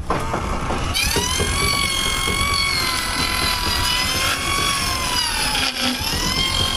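Horse-powered table saw running: its circular blade and drive give a loud, high whine whose pitch wavers slowly and sags briefly near the end, over a rattling rumble from the machinery.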